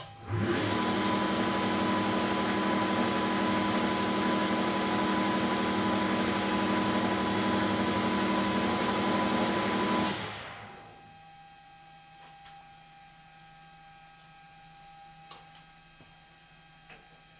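Weiler Matador SV lathe switched on with a click and running at 2400 rpm with a steady hum and whine while taking a light 0.1 mm finishing pass on a small shaft. After about ten seconds it is switched off and the spindle spins down, followed by a few faint clicks as the part is handled.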